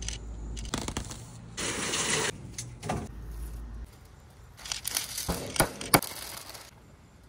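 Food-prep handling noises: a burst of rustling and crunching about a second and a half in, then paper crinkling with several sharp cracks as a sheet of parchment paper is handled over raw steak on a wooden board.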